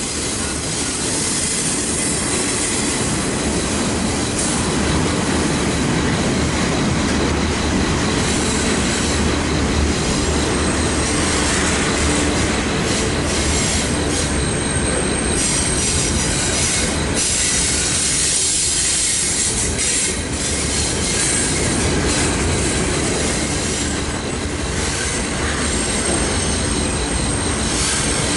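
Union Pacific intermodal freight cars rolling steadily past: a continuous rumble and rattle of steel wheels on rail, with thin, high wheel squeals now and then.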